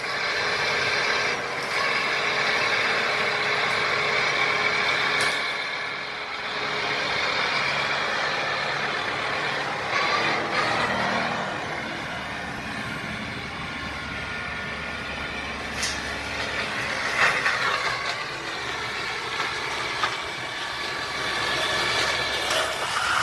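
Engine of a heavy brush- and weed-clearing machine running steadily, with a few steady whining tones over it and scattered short knocks.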